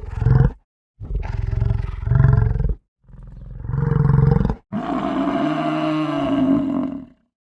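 A large wild animal roaring in four separate calls, the last and longest lasting about two and a half seconds.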